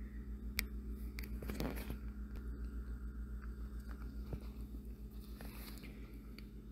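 Small plastic cable connectors of an LED light strip being handled and clipped together: a few sharp clicks and light rustling, over a steady low pulsing hum.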